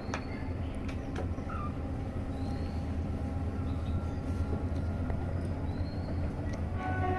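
Steady low rumble of a vehicle in motion, with a few scattered clicks.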